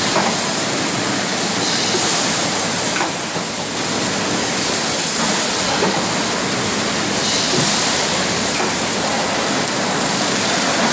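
Steady machine noise of a running bottle-packing line, conveyors and a shrink-wrap machine, heard as an even, hiss-like din with no distinct rhythm.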